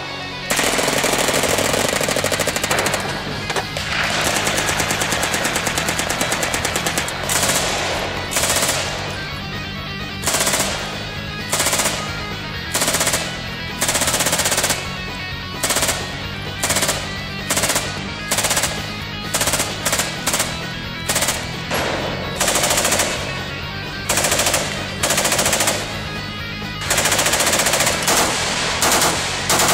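Full-automatic gunfire from several guns in turn: MP5 submachine guns, an RPD belt-fed light machine gun and an AK-pattern rifle. Long bursts of rapid shots near the start and near the end, with many short bursts about a second apart in between, over background music.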